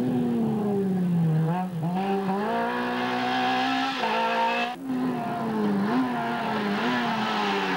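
Renault 11 Turbo rally car's engine at full throttle on a rally stage, its note climbing and dropping repeatedly through gear changes and throttle lifts, with a brief break a little under five seconds in.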